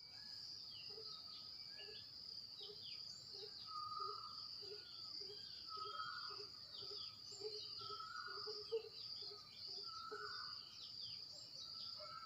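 Birds calling outdoors: a longer call repeating about every two seconds, quick chirps throughout, and a low note about twice a second, over a steady high-pitched insect drone.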